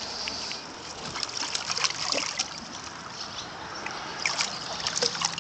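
Water trickling and splashing lightly beside a kayak, in many small irregular drips.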